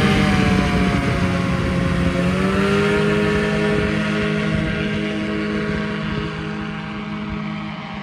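Powered paraglider trike's engine and propeller running at takeoff power, a steady drone. Its pitch drops about two seconds in, then holds while the sound gradually fades as the trike rolls away and lifts off.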